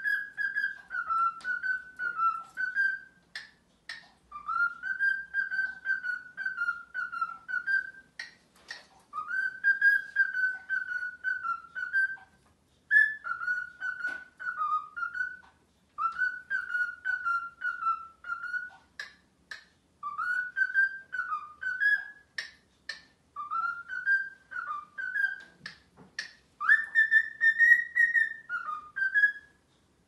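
Male cockatiel singing his courtship song: a wavering whistled phrase repeated about eight times, each a few seconds long with short pauses between, and short sharp clicks in the gaps.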